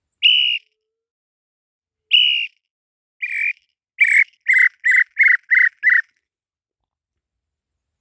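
Tataupa tinamou (inhambu-chintã) song: two separate whistled notes about two seconds apart, then a quickening series of shorter notes that falls slightly in pitch and ends about six seconds in.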